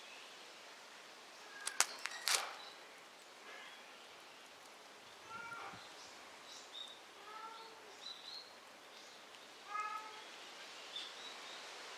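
A kitten mewing three times, each cry short and slightly arching, over quiet outdoor ambience with faint high chirps. A few sharp clicks come about two seconds in.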